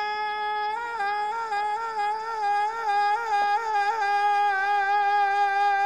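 A single voice chanting one long high note, with small upward turns in pitch through the middle, cutting off near the end.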